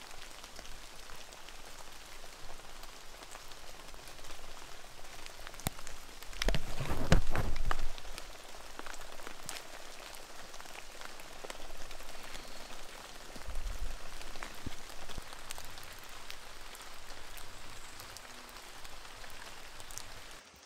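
Rain pattering steadily outdoors, with many individual drops ticking. About six and a half seconds in there is a louder low rumble lasting a second or so, and a shorter one later.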